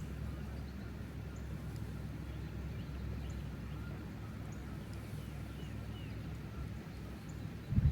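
Wind rumbling on the microphone, with faint scattered bird chirps over it, and a brief low thump at the very end.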